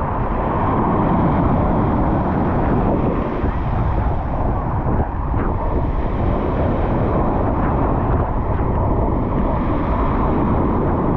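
Waves breaking and washing on a pebble beach, with a steady low rumble of wind buffeting the microphone.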